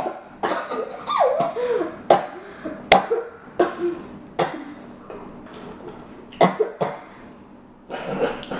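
A boy coughing in a fit of short, separate coughs repeated over several seconds.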